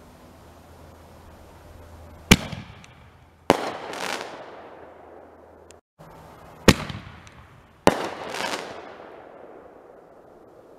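Fireworks going off: four sharp bangs in two pairs, each pair about a second apart. The second bang of each pair trails off in a long echoing rumble.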